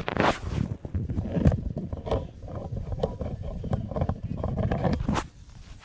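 Irregular crunching and rustling, like footsteps and handling on rough ground, with scattered knocks; it stops about five seconds in.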